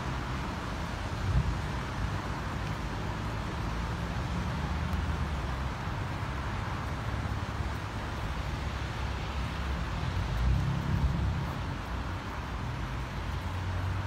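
Steady road traffic noise, with low wind rumble on the microphone; a vehicle swells past about ten seconds in.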